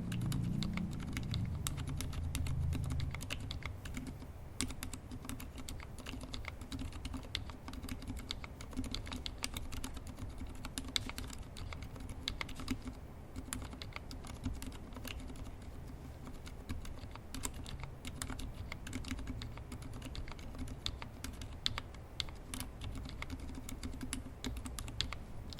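Typing on a TGR Alice mechanical keyboard with lubed Healios linear switches in a brass plate, under GMK keycaps: a rapid, continuous run of keystrokes, several a second, with lubed stabilisers on the larger keys.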